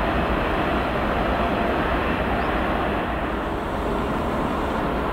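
ICE high-speed electric train running on the track: a steady rush of wheel-on-rail and air noise.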